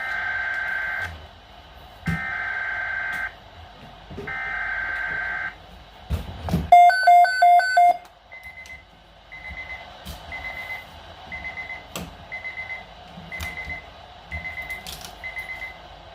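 Weather radio alert being triggered: three buzzy bursts of SAME digital header data, each about a second long, from a Weatheradio Canada broadcast. A low thump and a quick run of four loud beeps follow, then the receiver's alert alarm beeps about once a second.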